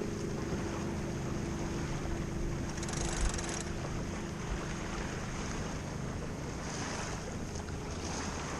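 Steady rush of wind and water aboard a sailboat under spinnaker: water washing along the hull and wind on the microphone, with a single short knock about three seconds in.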